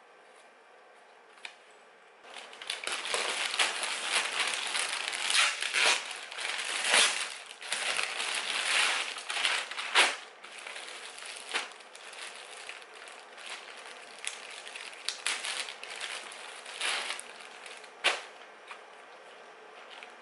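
Plastic packaging crinkling and crackling as hands unwrap a clothing parcel. It starts about two seconds in and is loudest for the next eight seconds or so, then eases to softer rustling with a few sharp crackles.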